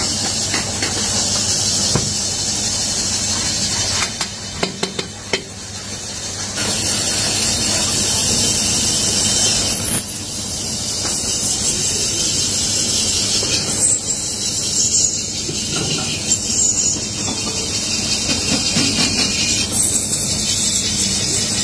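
Hand-held cutting tool scraping the inside of an aluminium pan spinning on a belt-driven lathe: a steady high hiss with some squeal, over a low motor hum. About four seconds in the cutting eases off for a couple of seconds with a few clicks, then resumes.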